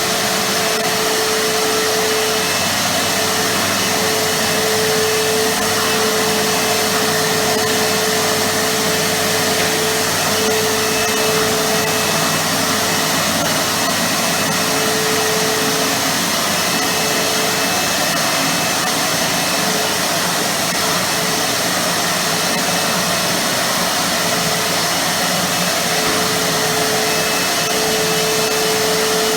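Titan TTB350VAC wet and dry vacuum cleaner running steadily: a loud, even rush of air with a held whine that fades in and out.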